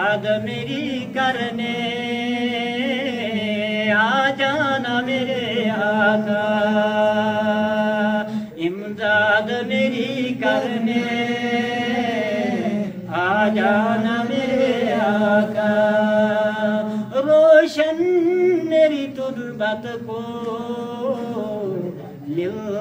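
A man singing an Urdu naat solo in long held lines that bend and waver in pitch, with short breaks for breath between phrases.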